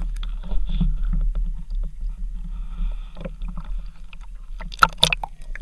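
Muffled water sounds with a steady low rumble and scattered small clicks, and two sharper clicks about five seconds in.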